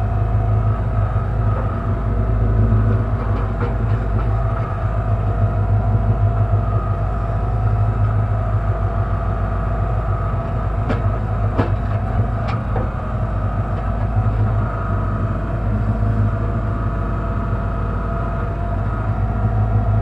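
Kellfri towable mini backhoe's engine running steadily with its hydraulics working the arm and bucket. Three sharp knocks come a little past halfway.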